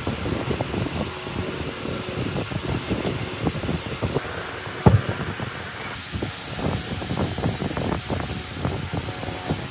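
A metal scraper scraping rust and caked dirt off a rusty three-phase electric motor housing in quick, rasping strokes, with one sharp knock about five seconds in. In the latter part a wire brush scrubs the housing's cooling fins, giving a hissier sound.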